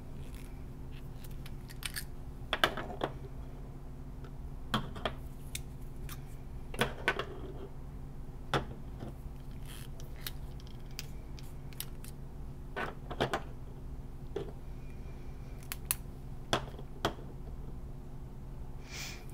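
Scattered small plastic and metal clicks and taps, about a dozen spread out, as fountain pens are uncapped and laid back down on a desk, over a steady low hum.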